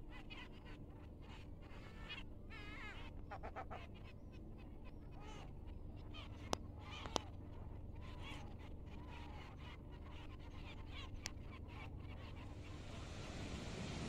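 Faint calling and chirping of several birds over a low steady rumble, with two sharp clicks about half a second apart around the middle.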